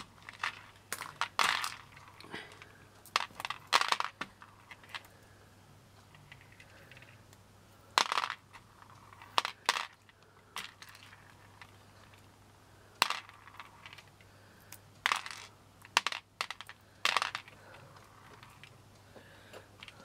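Loose pearl beads clicking against one another and the tray as they slide off a necklace strand and are pushed around by hand. The clicks are sharp and irregular, about a dozen of them, some in quick pairs, with quiet gaps between.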